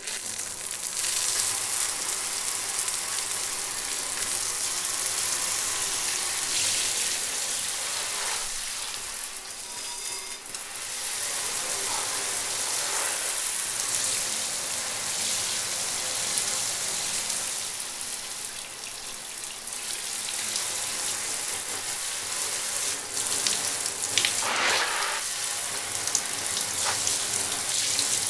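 Shower running: a steady hiss of water spray, its sound shifting briefly a few times, most clearly near the end.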